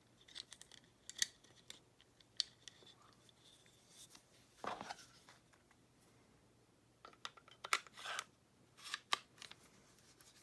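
Faint scattered clicks and taps of steel and polymer pistol parts being handled, with a short scrape a little under halfway through and a cluster of clicks near the end, as the recoil spring is seated in an HK VP9's slide and the slide is fitted back onto the frame during reassembly.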